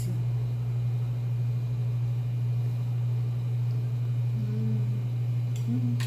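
A steady low hum throughout, with a person's short closed-mouth 'mmm' of enjoyment twice near the end while tasting food.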